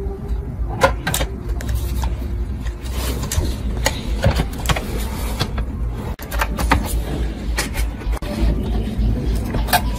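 Scattered sharp clicks and knocks from handling the Technics SU-7700 amplifier's metal front panel and chassis as they are fitted together, over a steady low rumble.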